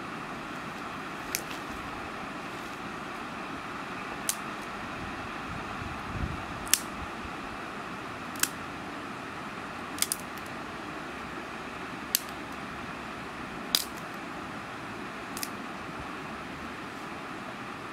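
Dry sticks and twigs snapping as they are broken by hand for a fire: about eight sharp cracks, one every one and a half to two seconds, one of them doubled, over a steady hiss.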